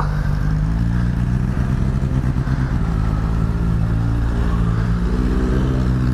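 Sport motorcycle engine running at low, nearly steady revs.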